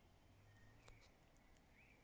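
Near silence, with a few faint high bird chirps and one short click about a second in.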